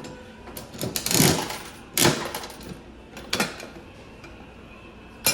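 Several clattering knocks and rustles, the loudest about a second and two seconds in, with a sharp click near the end, over a faint steady background of machine tones.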